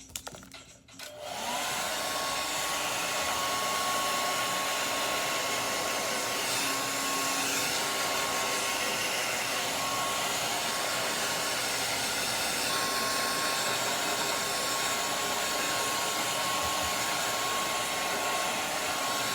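Hair dryer switching on about a second and a half in, then running steadily: a rush of blowing air with a constant high whine.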